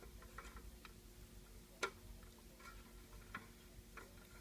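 Clock ticking faintly, with one sharper click a little under two seconds in.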